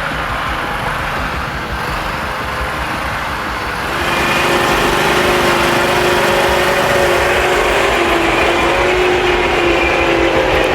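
A heavy forestry machine's engine running steadily, then revving up and growing louder about four seconds in, holding a steady higher whine.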